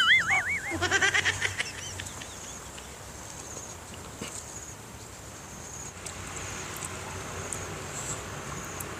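A wavering animal call in the first second, followed by a quick rapid trill. After that, faint outdoor background with a thin steady high insect buzz.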